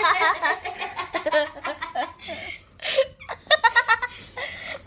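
Kids laughing and giggling in short bursts, with breathy laughs and a quick run of "ha-ha" pulses near the end.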